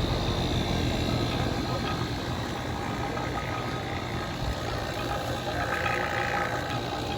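Steady mechanical running hum of a motor or engine, with no clear changes.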